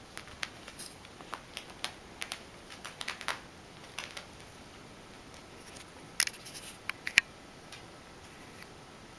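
A kitten pouncing on and batting at a yarn string on carpet: scattered light scratches and clicks of its claws scrabbling, busiest in the first three seconds and again in a quick cluster a little past six seconds, the sharpest click near seven seconds.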